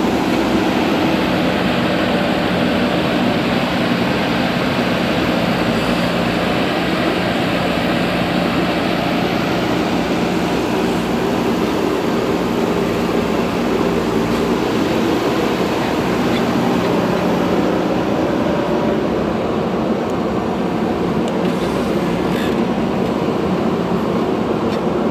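Heavy diesel engine of earth-moving machinery running steadily under load, its tone shifting about two-thirds of the way through.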